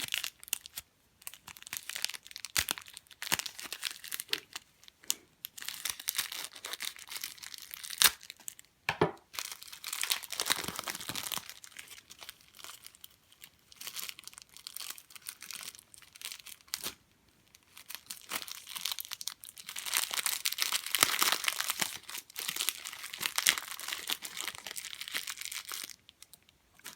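Small plastic parts bags and packaging crinkling and rustling as they are handled and opened, in irregular stretches, with a few sharp clicks.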